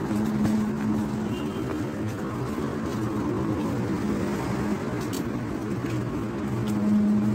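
A car driving: a steady low drone of engine hum and road noise.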